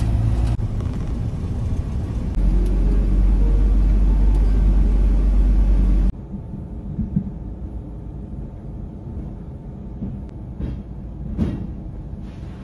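Small lorry's engine running, heard from inside the cab: a loud low rumble that drops off suddenly about six seconds in to a quieter steady hum, with a couple of sharp knocks near the end.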